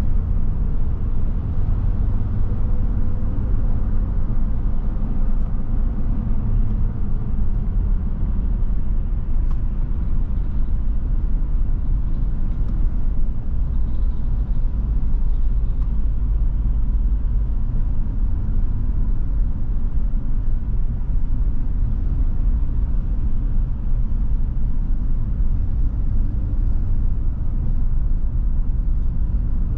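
Steady low rumble of a road vehicle driving, engine and tyre noise blended.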